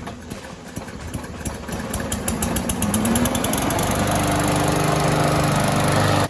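Briggs & Stratton E-Series push mower engine coming up to speed, its firing pulses quickening, then running steadily from about four seconds in.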